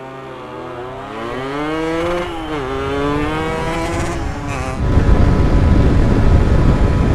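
Two-stroke motorcycle engine accelerating hard, its pitch climbing with a short drop about two and a half seconds in, like a gear change. About five seconds in, a louder, dense low rumbling noise takes over.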